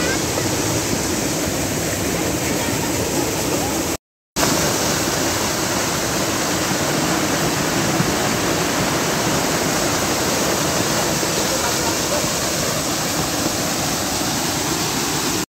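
Muddy flash floodwater from heavy rain rushing down a steep rocky gully, a steady, heavy rush of churning water. The sound drops out for a split second about four seconds in.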